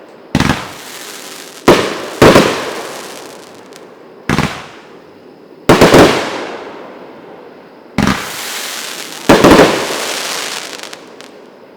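Megabanger 'Rock It' 500 g consumer fireworks cake firing: a series of about eight sharp bangs, some coming in quick pairs, each trailing off in a long fading echo.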